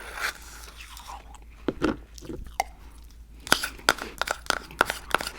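Close-miked chewing of crunchy food: scattered crisp crunches, then a quick run of sharp crunches through the second half.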